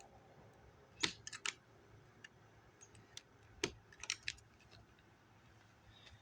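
A small rubber fuel line being cut at an angle and handled: a few sharp clicks and snips in small clusters, the loudest a little past the middle.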